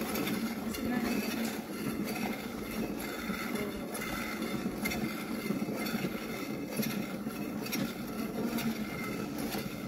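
Milk squirting into a steel bucket as a water buffalo is milked by hand, the streams coming in a steady rhythm.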